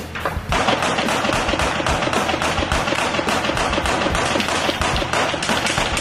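Heavy, sustained automatic gunfire: rapid overlapping shots that set in about half a second in and keep on without a break, over a steady low hum.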